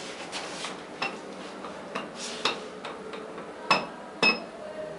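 Clicks and taps on the stainless-steel operating panel of an SMW elevator car as a finger presses the UPP button, the two loudest clicks half a second apart near the end, each with a short ringing tone.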